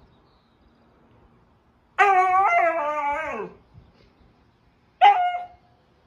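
A dog howling: a long, wavering howl about two seconds in that drops in pitch as it ends, then a short second call about three seconds later.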